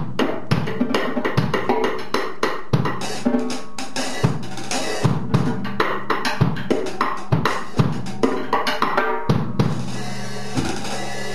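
Acoustic drum kit played with sticks and no cymbals: a busy run of strokes across the toms and snare over repeated low bass-drum hits, the drums ringing after each stroke.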